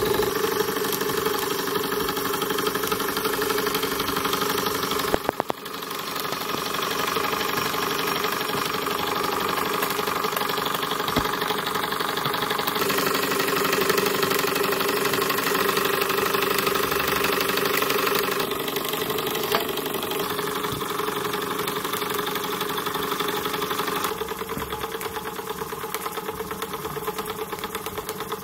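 Small live-steam horizontal mill engine running fast: a rapid, even clatter of exhaust beats and moving parts over a steady hum. It breaks off briefly about five seconds in and gets quieter near the end.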